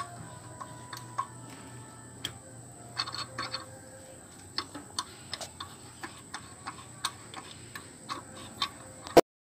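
Hand tap being turned by hand in a tap holder to cut a 6 mm × 1.0 thread in a metal engine part: irregular small metallic clicks and ticks as the tap bites and the holder shifts, a few with a brief ring. A sharp louder click comes near the end, and then the sound cuts off abruptly.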